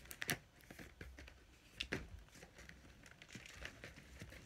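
Hands handling a cardboard doll box and its packaging: a few sharp taps and clicks, the loudest just after the start and around two seconds in, with faint rustling between.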